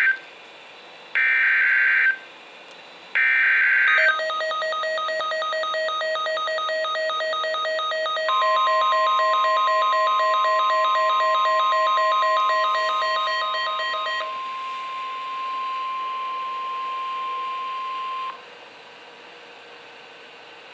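NOAA Weather Radio Emergency Alert System activation: the end of one SAME data burst and then two more, harsh screeching bursts about a second each, followed by a rapid beeping alarm. About 8 s in the steady 1050 Hz warning alarm tone joins, holds about ten seconds and cuts off, leaving faint radio hiss.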